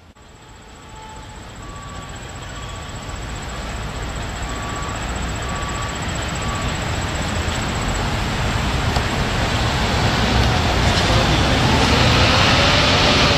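Steady road traffic noise, fading in from silence and growing gradually louder.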